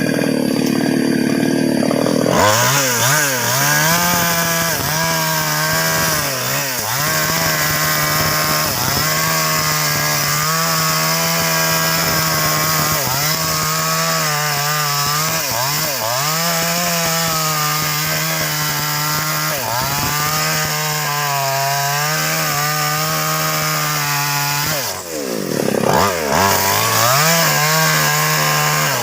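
Two-stroke chainsaw at full throttle, cutting through the trunk of a large sengon tree. Its engine pitch sags and recovers again and again as the chain bogs under load. Near the end the revs drop away briefly, then climb back to full speed.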